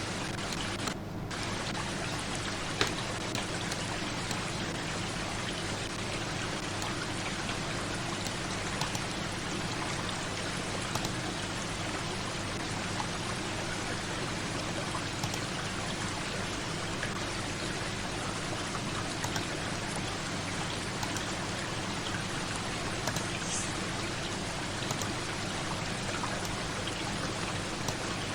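Steady running or trickling water, with faint scattered drips or ticks over it.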